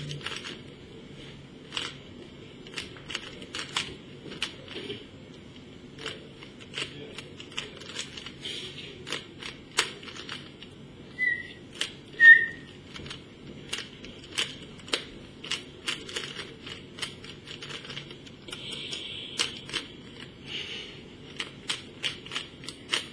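A Rubik's Cube being turned fast by hand: irregular plastic clicks and clacks as the layers rotate, coming in spurts. About halfway through, two short high squeaks about a second apart; the second is the loudest sound.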